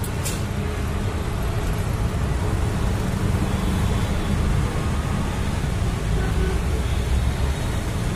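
Bajaj auto rickshaw engine running at idle close by, a steady low rumble.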